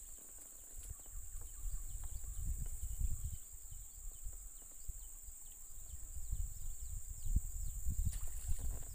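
Outdoor rural ambience: a steady high-pitched insect drone with low wind or handling rumble on the microphone. A run of faint short falling bird chirps comes in the middle.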